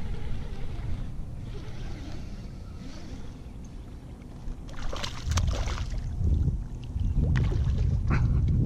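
A small hooked speckled trout being fought to a kayak: low wind rumble on the microphone and water moving against the hull. From about halfway through come a few short, sharp splashes as the fish thrashes at the surface close to the boat.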